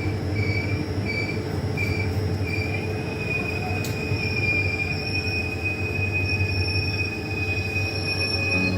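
Train running over the rails with a steady rumble, its steel wheels squealing against the rails in a high-pitched tone. The squeal comes and goes at first and holds steady from about three seconds in.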